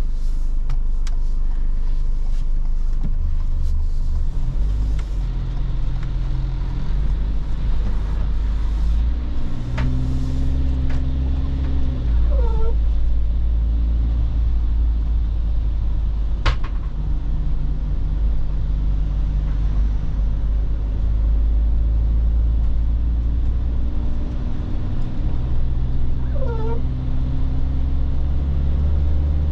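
In-cab sound of a 2019 Benimar Sport 363 camper's 2.0-litre Ford diesel engine and road rumble while driving, the engine note stepping up and down in pitch as it pulls away and gathers speed. Two brief squeaks come about twelve seconds in and again near the end, with a single click in between.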